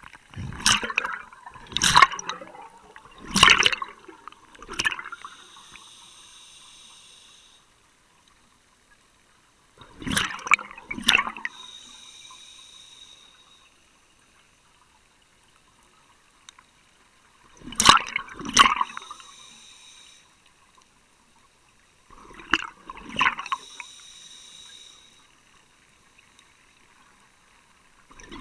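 Scuba diver breathing through a regulator underwater: four rounds of exhaled bubbles gurgling out, each followed by about two seconds of steady hiss.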